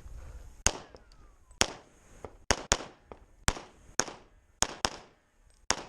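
About nine shots from a 2011 pistol in .40 S&W, fired at an uneven pace with some in quick pairs about a quarter second apart, each with a short echo. The last shot comes near the end.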